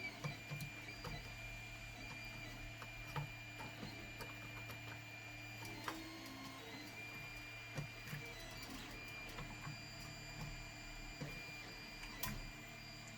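3D printer running: a steady motor hum with a thin stepper-motor whine that comes and goes as it prints, and a few faint clicks.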